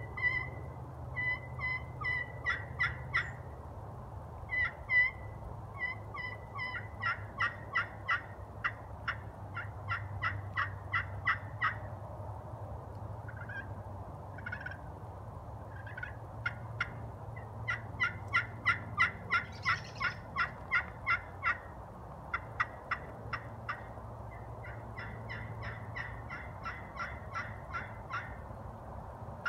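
Reynolds Pure Poison crystal pot-style turkey call played with a striker, imitating a hen turkey. It gives runs of short, sharp, evenly spaced yelp-like notes, with the fastest and loudest runs from about a quarter to two-fifths of the way in and again around two-thirds of the way through.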